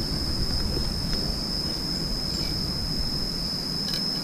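A steady, high-pitched insect drone, one unbroken tone, over a low rumbling noise, with a few faint clicks near the end.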